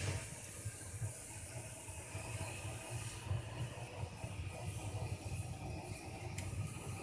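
Steady hiss of a whole chicken roasting on a rotisserie spit over glowing coals, with a low, uneven rumble underneath.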